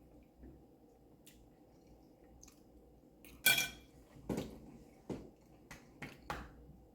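Tableware clinking during a meal. One sharp, ringing clink comes about three and a half seconds in, followed by a few lighter clicks and taps.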